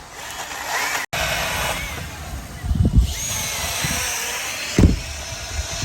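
Milwaukee battery-powered chainsaw running and cutting wood, a steady motor whine and chain noise, broken by a short gap about a second in. Two heavy thumps, about three and five seconds in.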